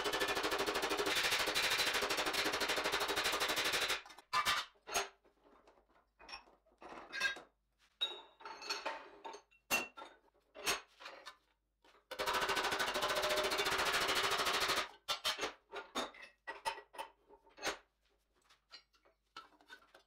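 Hammer planishing thin stainless steel sheet over a stake in a vise: two long runs of fast, even blows, with scattered single clanks and taps of metal on metal between them as the stake and workpiece are handled.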